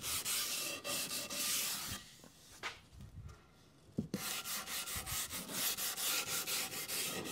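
Hand-sanding a cherry-wood bed leg with a 220-grit sanding block: quick, even back-and-forth strokes, a few a second, lightly softening the rounded-over edges. The strokes pause about two seconds in and start again with a light knock about four seconds in.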